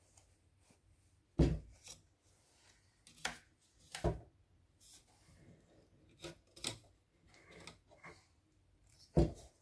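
Handling noise: irregular knocks, clicks and rubbing as a hard object is moved about and set against a surface. There are two louder thumps, about a second and a half in and near the end.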